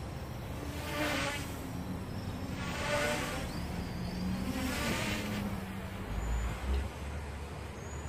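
Outdoor traffic noise that swells three times, about two seconds apart, like vehicles passing, over a faint steady hum. Wind rumbles on the microphone about six seconds in.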